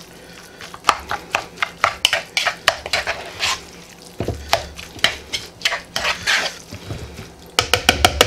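A spoon stirring wet chicken salad in a plastic mixing bowl: irregular scrapes and clicks of the spoon against the bowl with squishy mixing, the strokes coming quicker near the end.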